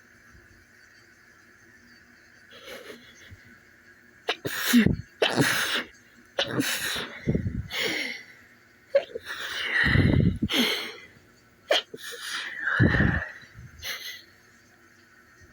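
A man sneezing repeatedly in a long fit, several loud sneezes in close succession with sharp breaths between them, starting a few seconds in.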